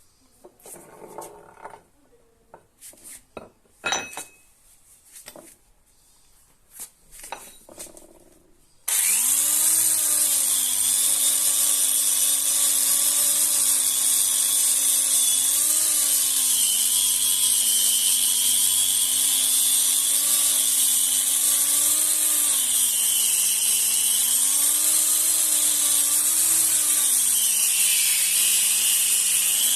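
A few scattered clinks and knocks of metal tools being handled, then about nine seconds in an electric grinding machine starts and runs steadily with a high grinding hiss over its motor hum. The hum dips in pitch and recovers several times, as the motor slows when the rusty tool is pressed against the wheel.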